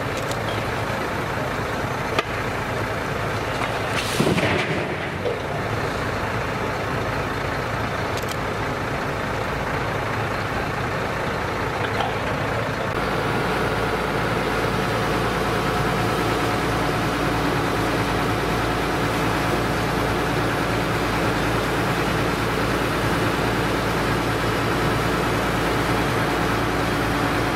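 Heavy diesel truck engines running steadily at a truck-mounted crane at work, with a brief rushing noise about four seconds in. About thirteen seconds in the sound changes to a steadier engine hum.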